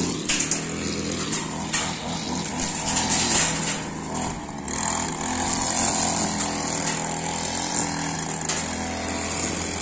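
Petrol string trimmer running steadily as it cuts grass.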